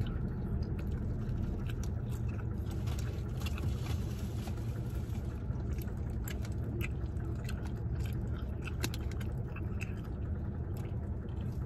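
Chewing and small wet mouth clicks of a person eating fried snacks, over a steady low hum of a car cabin.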